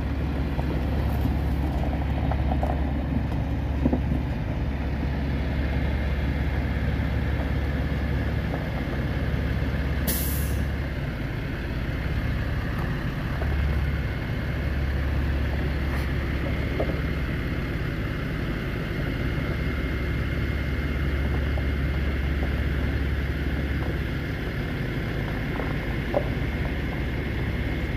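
A 2015 Ram 3500HD's 6.4-litre gasoline V8 idling steadily, with a brief hiss about ten seconds in.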